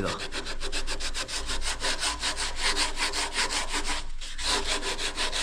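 Rapid back-and-forth hand scrubbing of a radiator's cracked seam with an abrasive pad, about seven strokes a second, cleaning the metal ready for welding. There is a brief pause a little after four seconds in.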